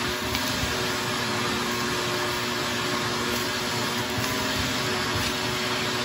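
Shop-Vac 10-gallon wet/dry vacuum running steadily, its hose nozzle held to the collar of a paper vacuum bag and sucking the dust out of it: a steady rush of air over a constant motor hum.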